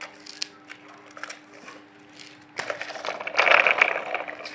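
Scattered light clicks, then, about two and a half seconds in, nearly two seconds of loud crunching, rustling scrape from the ribbed cardboard-like cooler-pad ramp sheets being stepped on and shifted.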